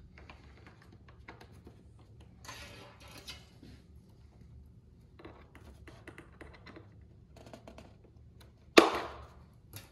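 Faint clicks and rustling of hands and pliers working a stiff pushrod into a plastic servo arm on a foam model jet, then one loud knock near the end.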